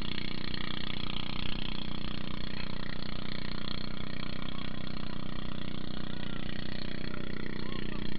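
Engine of an outrigger pump boat running steadily while towing a banana boat, its tone held even throughout, over the rushing wash of the wake.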